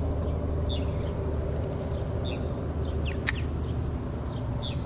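Small birds chirping: short high calls about once a second, with one sharper, brighter call about three seconds in, over a steady low hum.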